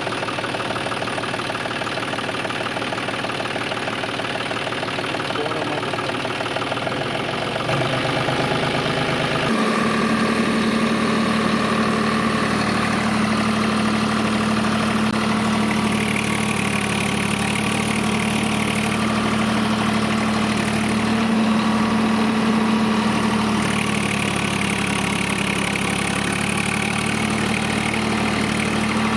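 An engine-like drone running continuously. It changes character about eight seconds in, then settles into a steady hum from about ten seconds in.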